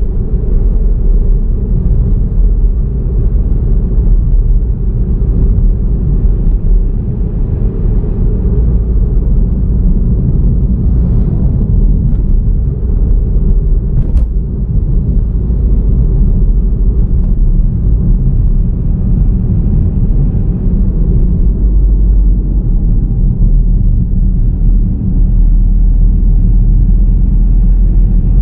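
Steady low rumble of a car driving along a road: road and engine noise picked up by the vehicle-mounted camera.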